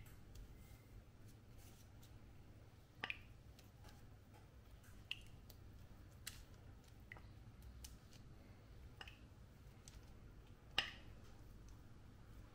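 Near silence, broken by scattered light clicks and taps, the loudest about three seconds in and again near the end.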